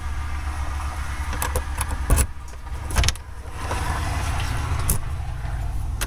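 Key unlocking a door deadbolt: a few separate clicks and knocks from the lock over a steady low rumble.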